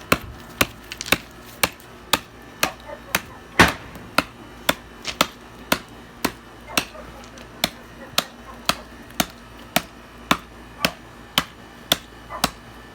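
Hatchet chopping into dry wood: a steady run of sharp strikes, about two a second, with one louder blow about three and a half seconds in.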